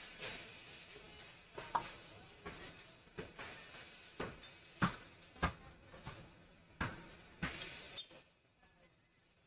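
Irregular sharp clicks and light knocks as small repair tools are handled and set down around an iPad mini 2's cracked touch glass on a silicone mat. They stop about eight seconds in.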